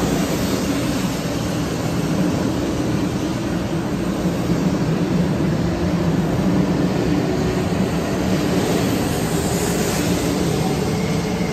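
A 500 series Shinkansen train pulling out of the platform, its cars sliding past close by with a steady, loud running noise of motors and wheels.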